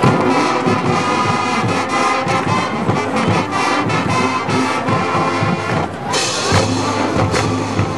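High school marching band playing, brass over a steady drum beat. About six seconds in the sound turns to a brighter, noisier wash.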